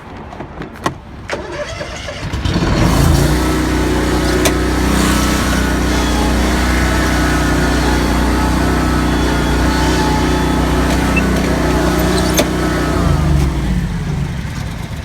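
A motor vehicle engine starts about two seconds in after a few clicks, runs steadily at a low pitch, then winds down and dies away near the end.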